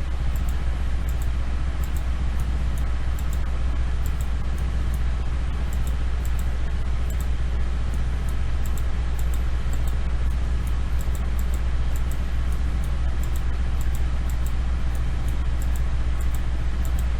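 Steady low hum and hiss of background room noise, like a fan or air conditioner running, with faint irregular clicks of a computer mouse a few times a second.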